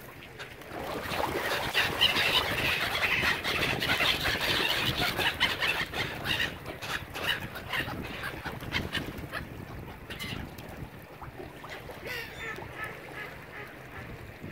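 A flock of waterfowl calling: a dense flurry of overlapping calls from about a second in that thins out after about six seconds, with a few scattered calls later.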